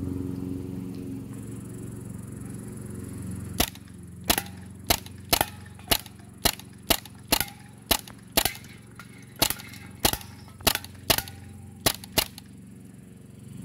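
Crosman AK-1 CO2-powered BB rifle fired in semi-auto mode: about sixteen sharp single pops, roughly two a second at an uneven pace, starting a few seconds in and stopping shortly before the end, over a low steady hum.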